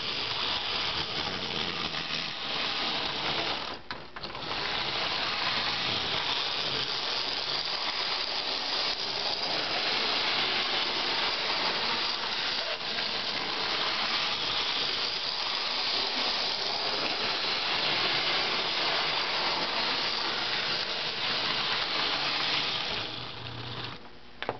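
Bachmann N scale 4-4-0 American steam locomotive running around its track, its small electric motor and gears whirring and rattling steadily. The sound dips briefly about four seconds in and falls away near the end.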